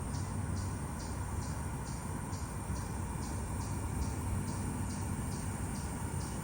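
Cricket chirping in a steady rhythm, about two chirps a second, over a low rumble of outdoor background noise.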